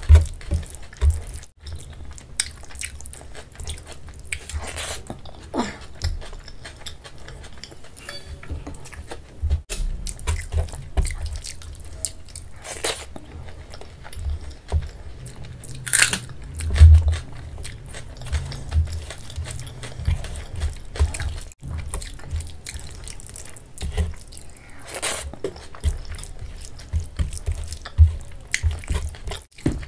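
Close-miked ASMR eating by hand: wet squelching and dripping as rice and kadhi are mixed with the fingers on a steel plate, with chewing and mouth clicks. The sounds are irregular, with scattered low thumps and sharp clicks.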